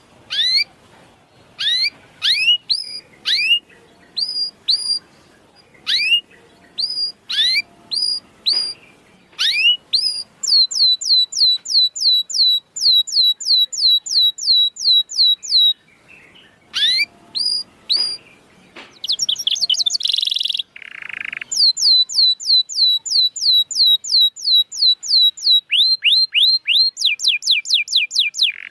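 Domestic canary singing: separate upward-sweeping chirps at first, then long runs of quick, evenly repeated down-sweeping notes, about three to four a second, broken by one brief harsh note past the middle.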